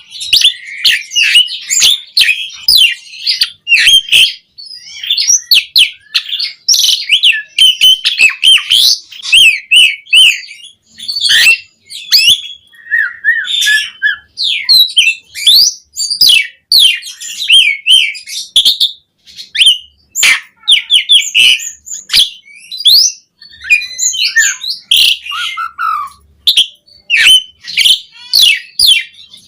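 Asian pied starling (jalak suren) singing without a break in full song: a fast, varied stream of whistles, chattering and sharp clicks, filled with mimicked phrases.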